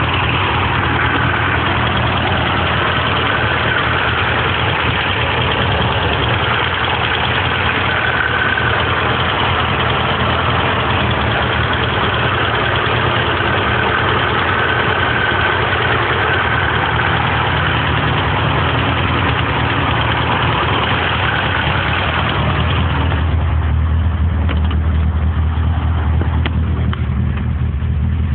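1978 Porsche 924's four-cylinder overhead-cam engine idling steadily with a loud, rapid valve-train ticking: loose tappets left out of clearance, their adjustment screws backed fully out because the valve stem tips were not ground after a valve job. Near the end the sound turns duller, with more low hum and less of the higher clatter.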